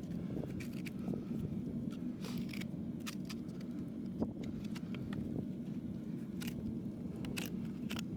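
Farrier's hand tools working on a horse's hoof: scattered short clicks and brief scrapes, irregularly spaced, over a steady low hum.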